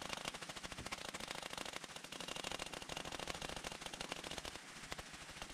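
Rapid, steady clatter of sharp clicks, many per second, while a shock pump inflates a mountain bike's rear air shock to 160 psi.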